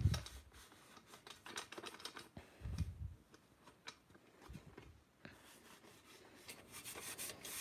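A cloth rubbing and wiping over the steel shell of a WWI German helmet, with scattered small scrapes and clicks from handling it and a couple of dull bumps, one at the start and one about three seconds in.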